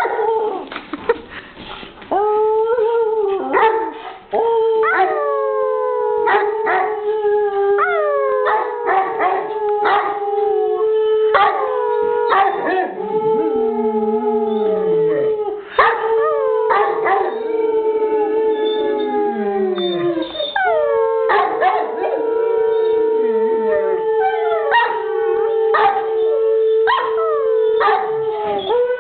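English Mastiff howling: a run of long drawn-out howls, many opening with a slide down in pitch before settling into a held note, with short sharp sounds in between.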